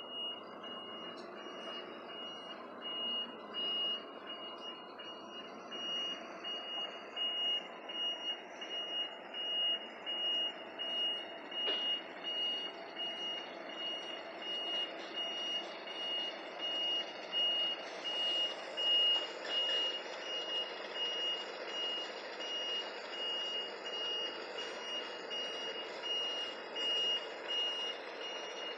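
Heavy vehicle's reversing alarm beeping steadily in one high tone, repeating at an even pace, over the running of its engine as it manoeuvres in reverse.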